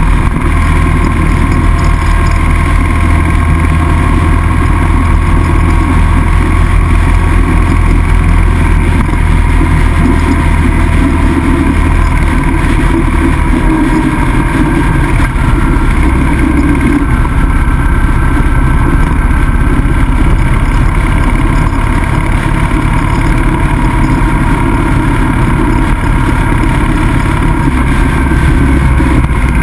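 Motorcycle engine running at road speed with steady wind rush over the bike-mounted microphone. The low engine note changes about halfway through and again near the end.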